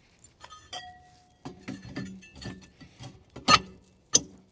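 Metal clicks, clinks and taps of tools and parts while fitting new rear drum brake shoes, ending in two sharp knocks near the end.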